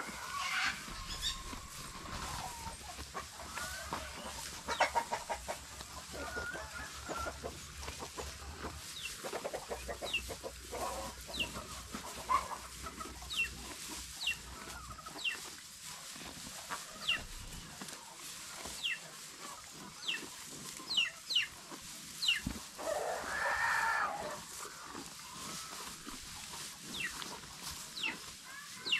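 Birds calling: many short, high, falling chirps, with patches of rapid pulsing and one louder call lasting about a second past the middle.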